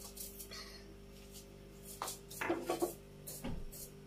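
Kitchen utensils and dishes clinking and knocking: a cluster of clinks about two seconds in, then a duller knock, over a faint steady hum.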